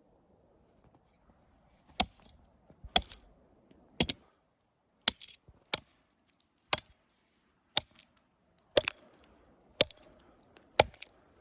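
Hatchet chopping into a tree trunk: about ten sharp strikes, roughly one a second, starting about two seconds in. The strikes chip the bark to blaze a trail marker.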